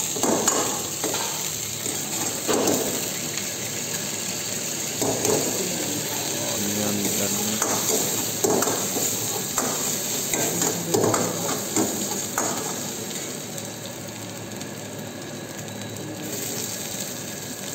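Food sizzling in hot oil in a wok over a gas flame, with a steel ladle repeatedly scraping and knocking against the wok as the contents are stirred. The sizzle is a steady hiss throughout.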